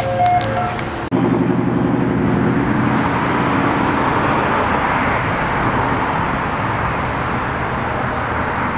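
Road traffic: cars passing close by, a steady rush of tyre and engine noise that swells and eases, with a low engine drone for the first couple of seconds. Music ends abruptly about a second in.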